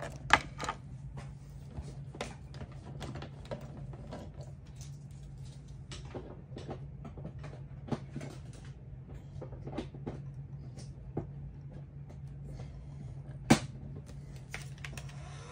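Scattered light clicks and taps of wire, tubing and small tools being handled on a workbench, with two sharper clicks, one just after the start and one near the end, over a steady low hum.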